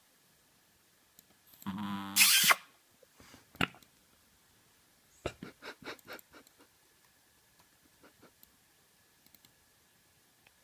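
Chihuahua snoring in its sleep: one pitched snore about two seconds in that ends in a loud, sharp snort. A sharp click follows, then a quick run of soft clicks that fades away.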